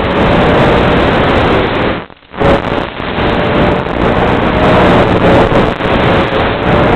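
Small electric FPV aircraft in flight: a steady rush of wind noise with a faint motor-and-propeller hum, cutting out briefly about two seconds in.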